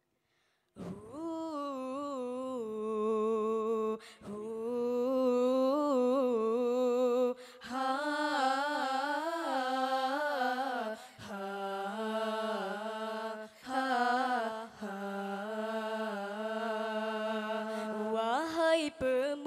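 Group of female voices singing an a cappella nasyid in harmony, starting about a second in: long held, ornamented phrases with no clear words, broken by short breaths every few seconds.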